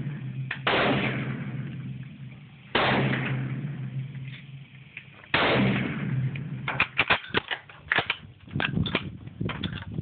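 Three gunshots about two and a half seconds apart, each ringing out in a long fading echo, followed near the end by a rapid string of short, sharp cracks.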